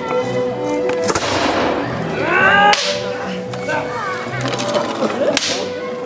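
Three sharp whip-like cracks from a staged samurai spear-and-sword fight, a second or two apart, each with a short fading hiss after it. Shouting voices and a steady held tone go on underneath.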